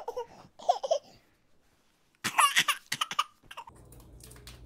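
A young child's voice in short, high-pitched vocal outbursts: a brief group in the first second, then a louder run after a pause. A low room hum comes back near the end.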